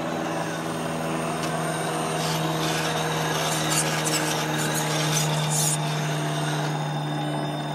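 RC scale crawler truck driving, its electric motor and drivetrain giving a steady whine, with a few short scraping noises.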